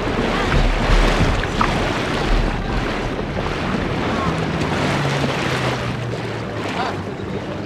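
Wind buffeting the microphone and water splashing along a kayak's hull, with a heavy low rumble for the first few seconds. After that the rumble drops away and a steady low motor hum sits under the wind and water, dipping slightly in pitch and rising again.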